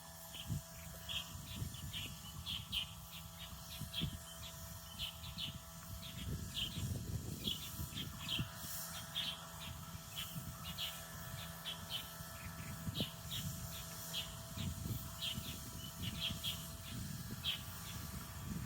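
Birds chirping in many short, high notes, coming irregularly several times a second, over a steady low rumble.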